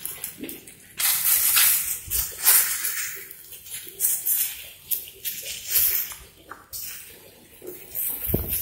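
Plastic fruit-wrapping bags crinkling and rustling in irregular bursts as a hand handles and pulls them open among the branches, with leaves rustling along with them.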